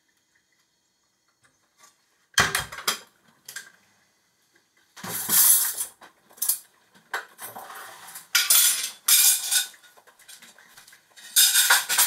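Plates and cutlery clinking and clattering in a string of short bursts as a table is set, starting about two seconds in.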